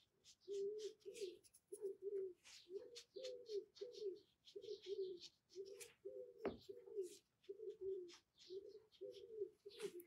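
A dove cooing faintly, a long run of short, low, even coos about two a second. A single sharp click comes about six and a half seconds in.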